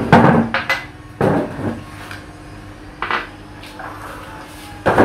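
Ceramic bowls, plates and utensils clinking and knocking against each other and on a stone tabletop as rice is dished out at the table. A run of clatters in the first second and a half, the first the loudest, another about three seconds in and one near the end.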